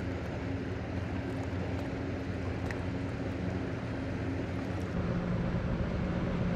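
A steady low engine hum carries across the water. About five seconds in it gives way to the louder, lower, steady drone of the Finnlines ferry Nordlink's engines as the ship passes close.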